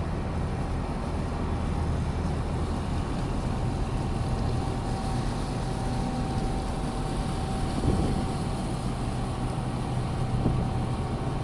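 Boat engine running steadily, a low even hum with a thin steady whine above it, and two brief louder knocks near the end.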